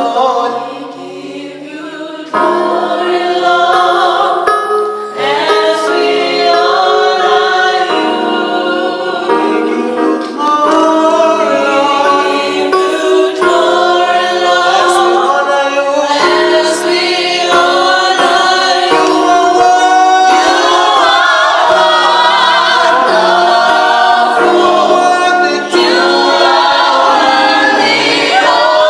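A choir singing in harmony without instruments, many voices moving together in chords; it gets louder about two seconds in.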